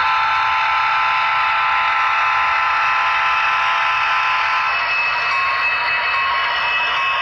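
Sound-equipped model diesel locomotive passing close, playing a multi-chime horn held for about four and a half seconds. After the horn stops, short repeating bell tones sound over a steady hiss of running sound.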